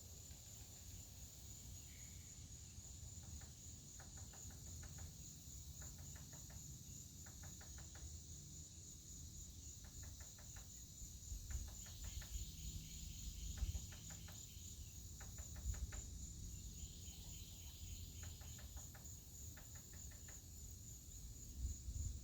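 Insects trilling, crickets among them: a steady high-pitched pulsing trill, with short trains of rapid clicking chirps coming again and again, and a lower pulsed trill joining about halfway through. A low rumble runs underneath.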